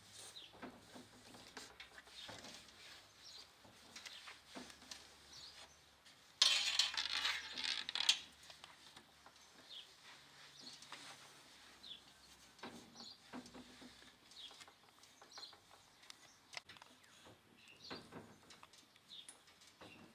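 Cloth wiping and rubbing over a plastic television cabinet and its wooden stand shelf, with small scattered taps and knocks. A louder stretch of rubbing comes about six seconds in and lasts about two seconds.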